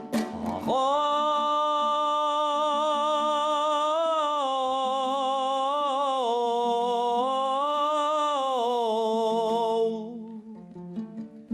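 A singer holds one long, wavering, ornamented note in a Kazakh folk song. It begins about a second in and fades away about ten seconds in, leaving only faint accompaniment.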